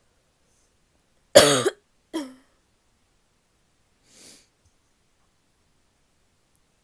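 A woman's barky cough: one loud cough about a second in, a weaker second cough right after it, then a faint breath a couple of seconds later.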